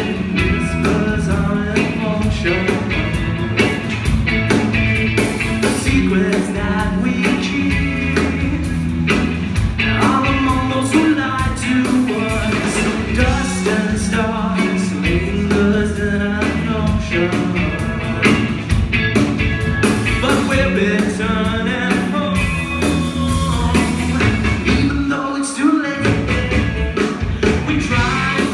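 Live rock band playing loud, with a singer over electric guitars, bass and drums, heard from the crowd. The bass and kick drop out for a moment near the end before the full band comes back in.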